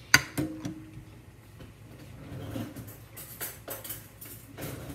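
Kitchen clatter of dishes and utensils: a sharp, loud knock just after the start and a couple of lighter knocks, then a run of clinks and clatters in the second half.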